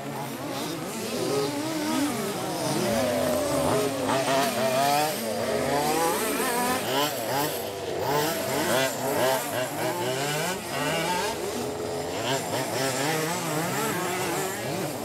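Several fifth-scale RC off-road buggies racing, their small two-stroke petrol engines revving up and down and overlapping one another.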